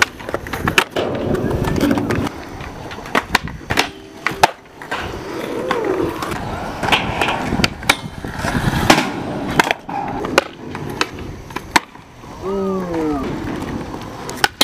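Skateboards rolling on concrete with repeated sharp clacks as boards are popped, land and slide a metal rail. A short shout about twelve and a half seconds in.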